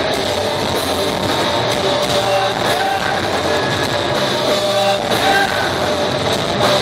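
Rock band playing live on loud amplified electric guitars, heard from within the audience in a concert hall.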